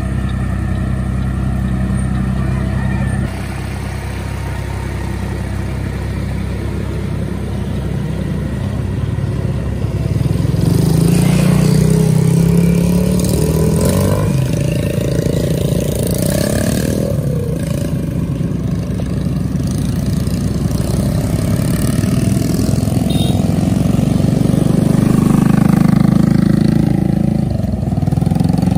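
Tractor engine running without a break, getting louder and working harder twice. The sound changes abruptly about three seconds in.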